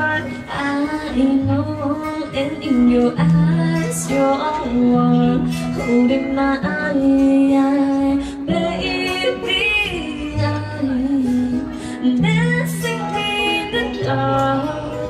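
A woman singing a slow ballad to her own acoustic guitar, with long held notes over plucked bass notes.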